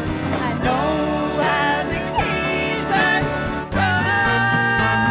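Live band music with a singer's wavering melodic phrases over guitar and band. About three and a half seconds in, the band and voice move into one long held note and chord, the song's final sustain.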